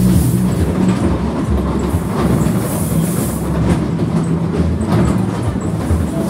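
Ghost-train ride car rolling along its track: a steady low rumble with irregular rattling and clatter from the wheels and car.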